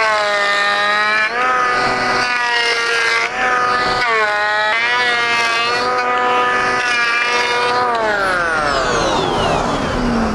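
Electric hand planer running at full speed. Its whine dips in pitch each time the cutter bites into the Western red cedar paddle blank and rises again between strokes, over several passes. About eight seconds in it is switched off and its whine slides steadily down as the cutter head spins down.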